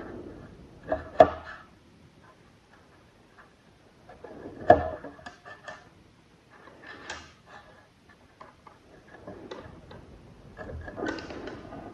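A few sharp knocks and clicks of hard objects being handled and set down on a work surface, the two loudest about a second in and near the halfway point, with quieter rattles in between.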